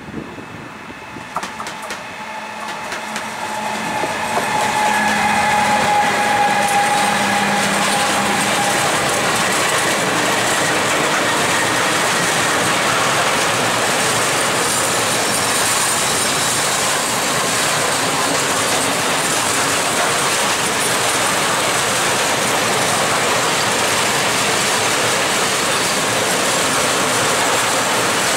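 Newag Dragon 2 electric locomotive (ET26) hauling a long freight train of open coal wagons past at close range. The sound grows over the first few seconds as the locomotive nears, with a pitched whine for several seconds. Then comes a loud, steady rolling noise of the wagons' wheels on the rails.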